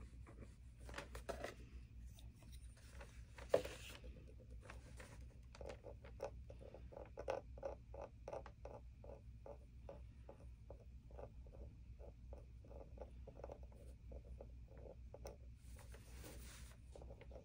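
Faint light ticks and scrapes of a plastic dotting tool working UV resin over a resin coaster, about three ticks a second, with one louder click about three and a half seconds in.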